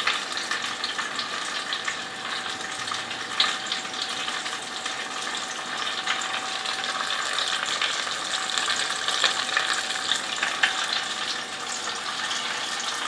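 Batter-coated banana pieces frying in hot oil in a deep fryer: a steady sizzle with scattered small crackles and a few sharper pops. A faint steady hum sits underneath.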